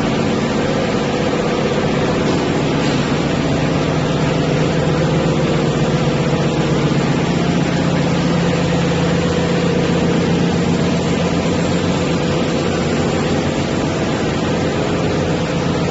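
Silicone wire extrusion line machinery running smoothly with a steady, unchanging hum.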